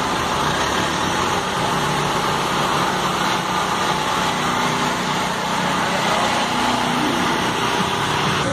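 Engines of slow-moving tractor-trailer trucks running as they pass in a convoy, a steady engine and road noise.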